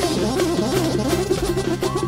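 Live Romani band music: a fast, ornamented melody on a Korg Kronos synthesizer keyboard over a steady bass note and a drum kit.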